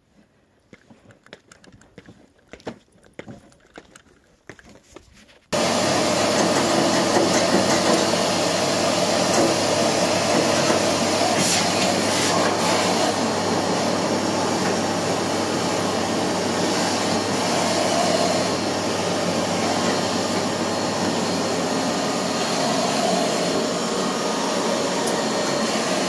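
Faint scattered clicks and knocks, then, about five seconds in, a vacuum cleaner comes in suddenly and runs steadily with a low hum, cleaning ash out of a pellet stove's firebox.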